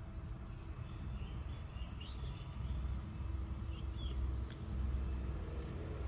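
Small pet birds chirping faintly in short calls, with a sharper, higher call about four and a half seconds in, over a steady low rumble.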